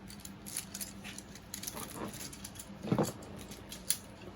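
Plastic infinity cube fidget being folded and handled: light, irregular plastic clicks and taps, with one louder click about three seconds in.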